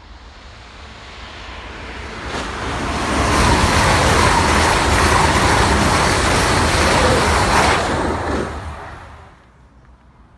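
East Midlands Railway Intercity passenger train passing at speed. A steady rush of wheel and engine noise swells as it approaches, stays loud for about five seconds as the coaches go by, then drops away quickly near the end.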